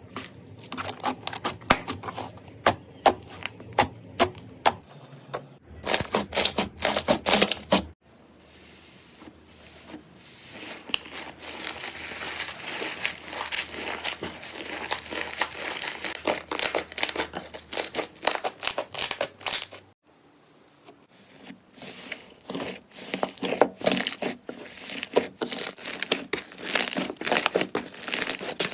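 Slime being squeezed, poked and pressed by hand close to the microphone: rapid crackling and clicking over several short clips, with a softer, denser crackle through the middle stretch.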